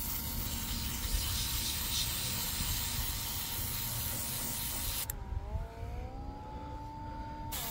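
Handheld airbrush spraying paint in a steady hiss, over the steady whine of its small rechargeable compressor. About five seconds in the spray stops for a couple of seconds, and the compressor's pitch dips and then climbs. The hiss comes back near the end.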